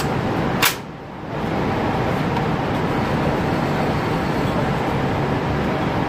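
A steady rushing noise, typical of an indoor range's ventilation. About half a second in there is a single sharp rifle shot from an AR-style rifle, and the background drops away for a moment right after it.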